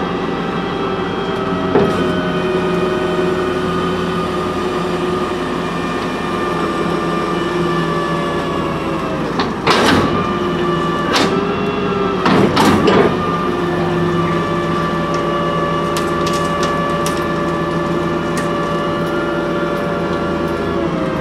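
The Ford C-Series garbage truck's engine runs steadily at raised revs, driving the Leach Sanicruiser rear-loader's hydraulics, while a steel dumpster is held tipped over the hopper. Loud metal clanks sound about ten seconds in and again a few times around twelve to thirteen seconds as the dumpster knocks against the hopper.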